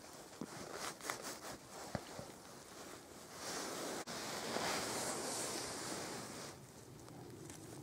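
Rustling and a few soft clicks of handling close to the forest floor, then a swell of wind noise on the microphone lasting about three seconds, broken by a brief dropout about four seconds in.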